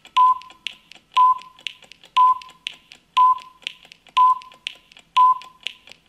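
Countdown timer sound effect: a short beep with a click once every second, and a softer tick halfway between, like a clock ticking off the seconds.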